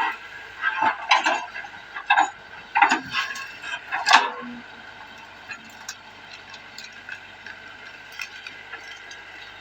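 Excavator at work: a steady mechanical hum, with a run of irregular clanks and knocks for about the first four seconds, then only light scattered ticks.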